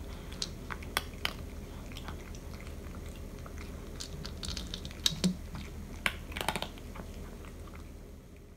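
A cat eating dry kibble from a bowl: irregular sharp crunches that come in small clusters.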